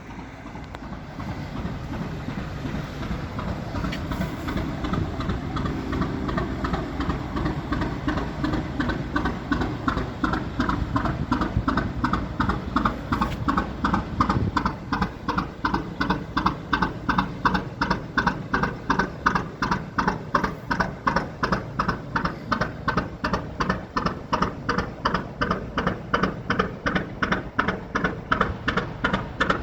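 1954 Industrie 2VD6 two-cylinder marine diesel engine running at slow, steady revs, with a heavy regular knocking beat of a little over two beats a second. The beat grows sharper and clearer about ten seconds in.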